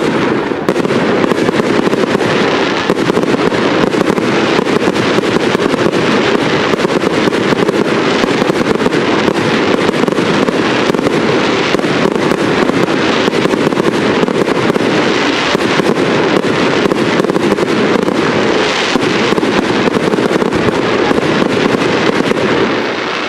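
A fireworks display firing a dense, continuous barrage of small bursts: rapid crackling and popping with no break, starting abruptly and easing slightly near the end.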